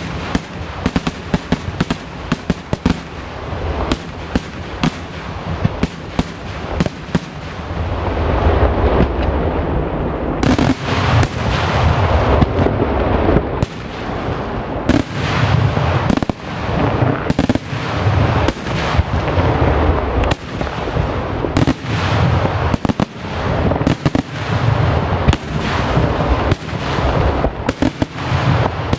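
Daytime aerial fireworks: a dense, rapid barrage of salute bangs bursting overhead, one report hard on another. About eight seconds in it thickens, with a continuous low rumble under the bangs.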